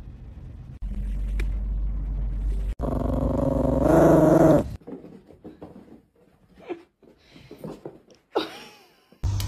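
A small dog growls, a wavering, drawn-out grumble lasting about two seconds near the middle. Before it there is a low steady hum; after it only faint scattered small sounds.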